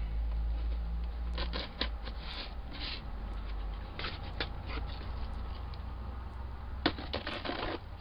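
Scissors cutting the packing tape on a cardboard shipping box, with irregular scrapes and crackles of tape and cardboard starting about a second in.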